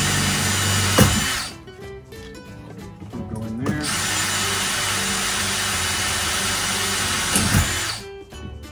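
Cordless drill boring 1/8-inch pilot holes in the screen door frame. It runs for about a second, stops, then starts again about four seconds in and runs steadily for another four seconds before stopping.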